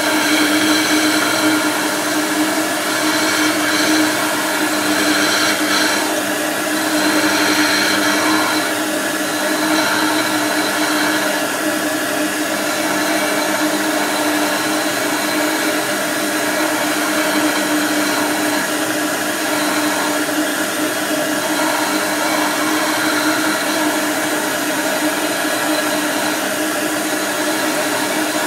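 Electric bench disc grinder running with a steady hum while a piece of amber is held against the spinning abrasive disc to grind it into shape.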